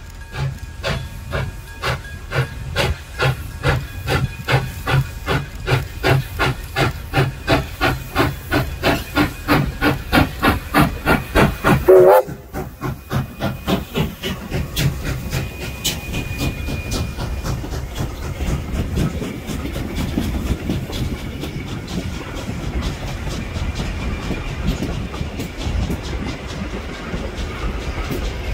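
Steam locomotive of the Victorian Railways K class, a 2-8-0, working a train, its exhaust beating about three times a second and growing louder as it approaches. About twelve seconds in it passes, and the beats give way to the steady rolling of the wooden carriages, with wheel clicks over the rail joints.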